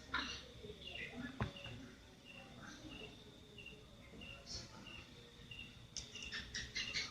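A bird chirping faintly and repeatedly, a short high chirp about every half second, breaking into a fast chatter of chirps near the end. A single sharp click about a second and a half in.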